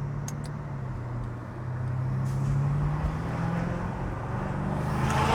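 BMW F90 M5's twin-turbo V8, fitted with aftermarket front-mount intakes and a catless exhaust, pulling under way with its pitch rising slowly. A rushing noise swells near the end.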